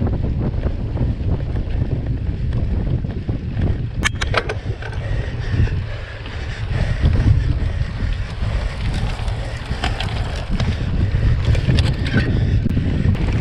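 Wind buffeting the microphone of a camera on a mountain bike rolling over a dirt track, with a steady rumble of tyres and rattling bike. A quick run of sharp clicks comes about four seconds in.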